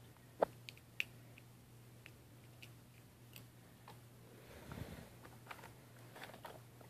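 Faint scattered clicks and taps from a plastic RC transmitter and a small RC car being handled, with a brief soft rushing noise about five seconds in, over a steady low hum.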